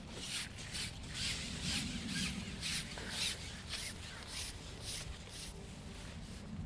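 Long carbon fishing pole being pushed out hand over hand, sliding with a run of short rubbing swishes, about three a second.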